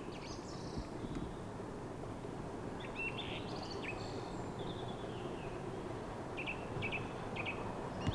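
Small birds chirping in short high calls, one run about three seconds in and another near the end, over a steady low background rumble.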